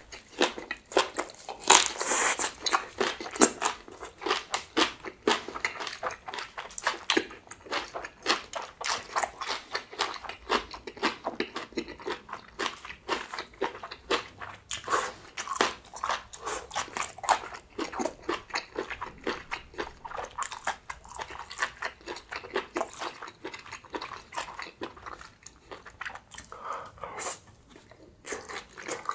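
Close-miked eating sounds: a person biting and chewing grilled small octopus with spicy green-onion kimchi seasoning, a steady run of quick crunchy clicks that thins out near the end.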